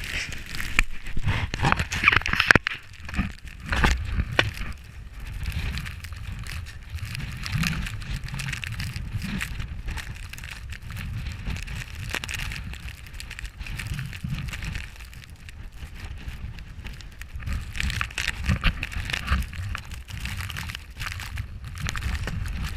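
A snowboard sliding and scraping over snow, with wind rumbling on an action camera's microphone and scattered knocks; loudest in the first few seconds.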